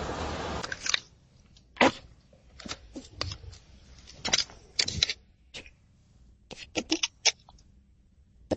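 A brief rush of noise, then irregular clicks and taps, some sharp and some in quick clusters.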